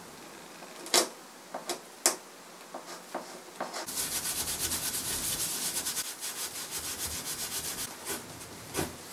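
A few sharp clicks of a small hand tool on the wooden bench back, then, about four seconds in, brisk back-and-forth scrubbing of an abrasive pad over the wood's old finish for about four seconds, with another click or two near the end.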